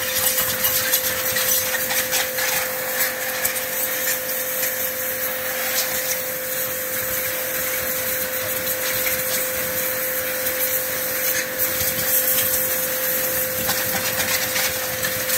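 APR high-pressure washer (jet cleaner) running and spraying a jet of water, a steady hiss with a steady whine from the pump motor beneath it.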